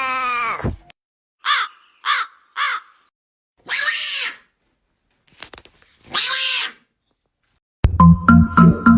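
A series of animal calls: one long call falling in pitch, three short calls in quick succession, then two harsher, noisier calls. Music with a beat starts near the end.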